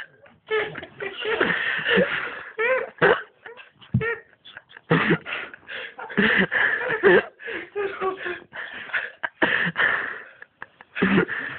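People's voices in short, breathy, unintelligible bursts, with some laughter.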